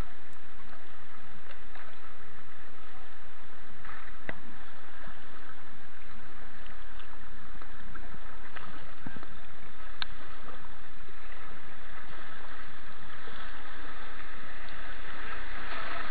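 Steady rush of moving river water and splashing around a kayak, picked up by a helmet-mounted action camera, with a few scattered knocks. The splashing grows louder near the end as water hits the camera.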